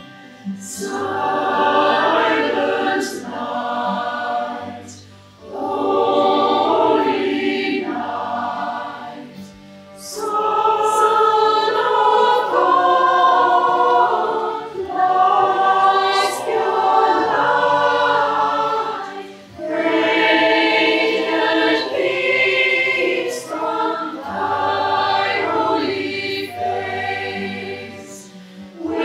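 A choir singing in phrases of a few seconds, each followed by a short breath pause.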